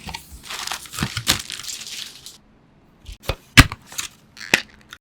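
PC parts and packaging being handled: a crinkly rustle with small clicks for about two seconds, then a short pause and a series of sharp clicks and knocks, the loudest a little past halfway.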